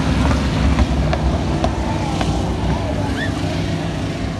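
Stock cars' engines running at racing speed as the cars circle the short oval, a steady, loud drone that rises and falls as they pass.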